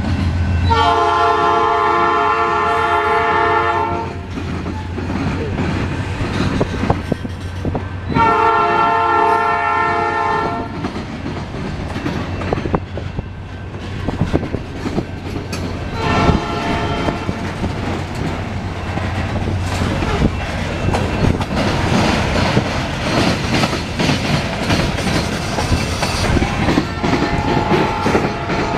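Freight train passing: the diesel locomotive's horn sounds two long blasts, a short one, and a final long one beginning near the end, the crossing signal pattern. Under and between the blasts the steady rumble and clickety-clack of the freight cars' wheels on the rails.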